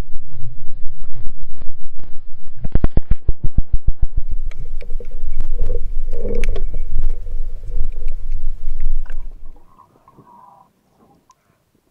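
Underwater sound picked up by an action camera: a low rush of water with scattered clicks and knocks. About three seconds in comes a quick run of loud, evenly spaced low pulses. The sound drops away almost to nothing shortly before the end.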